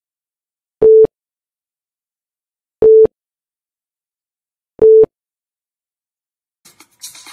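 Countdown timer beeps: three short identical electronic beeps at one pitch, about two seconds apart, one for each number counted down.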